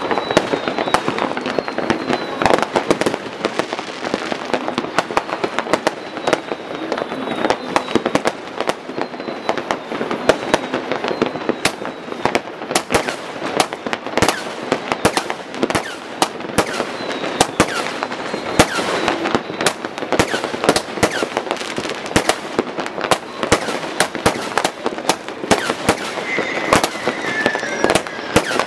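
Many fireworks and firecrackers going off at once: a dense, continuous crackle and banging of bursts in quick succession, with short high whistles now and then.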